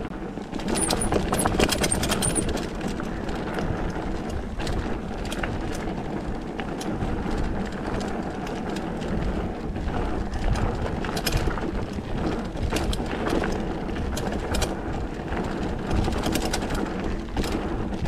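Mountain bike running along a gravel forest trail: tyre rumble on the surface, irregular rattles and clicks from the bike, and wind noise on the microphone.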